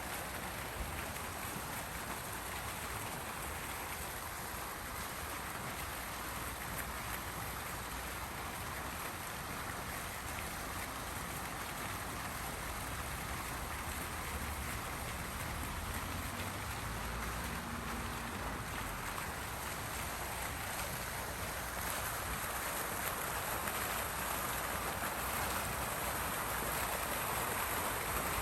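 Water fountain splashing steadily, falling water making an even rushing noise that grows slightly louder in the last few seconds.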